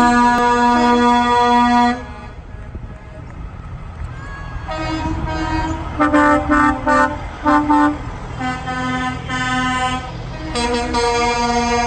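Trucks' air horns sounding over the low rumble of passing diesel trucks: a long blast at the start, a run of short toots around the middle, then another long blast near the end.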